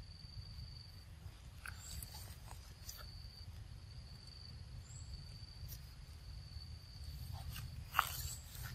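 Outdoor ambience: a steady high-pitched insect drone that drops out and comes back, over a low rumble, with scattered soft clicks and a single sharp click near the end.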